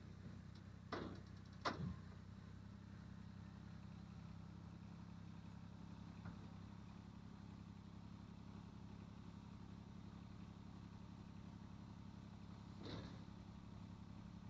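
Kubota BX2360 compact tractor's three-cylinder diesel running steadily as the tractor drives up onto a steel utility trailer. Two sharp clanks come about a second in, and a fainter one near the end.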